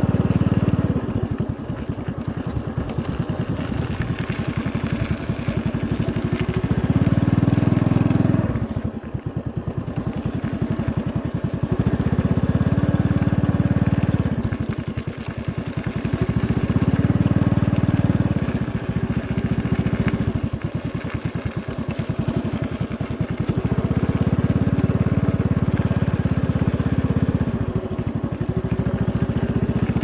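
Small motorcycle engine running while riding along, its sound swelling and easing every few seconds. A bird gives a quick run of short high chirps about two-thirds of the way through, and again near the end.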